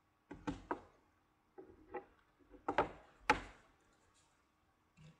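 Sealed trading-card boxes being handled and set down on a tabletop: a series of knocks and thumps, the two loudest close together about three seconds in.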